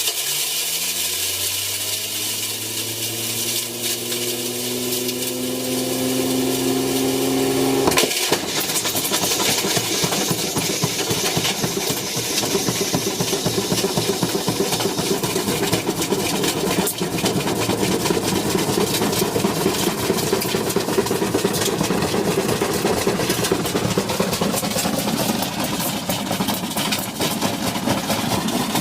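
Washing machine spinning up, its motor whine rising steadily for about eight seconds. Then a sharp crack and a loud, continuous rattling and clattering as the machine shakes at full spin.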